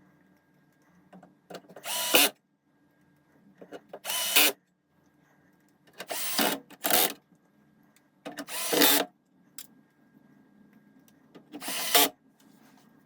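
A small handheld power tool run in six short bursts of about half a second to a second each, over a faint steady low hum.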